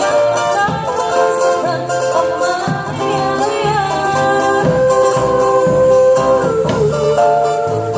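A singer's voice holding long, sliding notes over plucked-string accompaniment, with a bass line underneath: live busking music.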